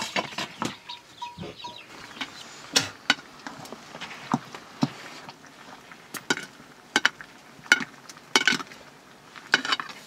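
Irregular metal clinks and knocks of a ladle against a blackened cooking pot as a stew is stirred over a wood fire, with a sharp knock right at the start as the pots are handled.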